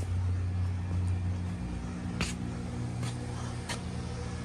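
Steady low hum of running HVAC equipment, dropping in level about a third of the way in, with a few light clicks.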